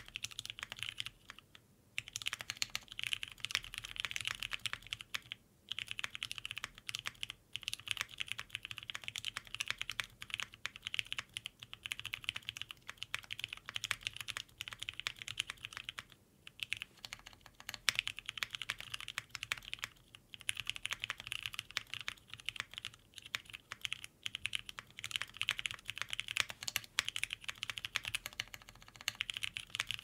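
Typing on a Cannonkeys Bakeneko60 mechanical keyboard with lubed tactile Terry frankenswitches (Cherry housings, T1 stems, Gateron yellow springs), an FR4 plate and GMK keycaps: a steady stream of keystrokes, broken by a few brief pauses.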